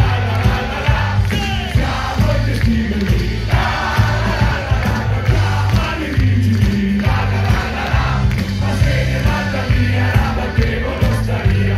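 Live rock band playing loud, with a steady driving beat, heavy bass and male lead vocals, and a crowd singing along.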